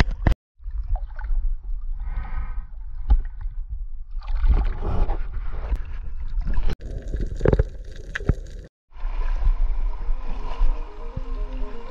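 Seawater sloshing and splashing around an action camera held at the sea surface, with a heavy low rumble on the microphone and a few sudden breaks where the sound cuts out. Near the end, background music comes in over the rush of shallow water at the shore.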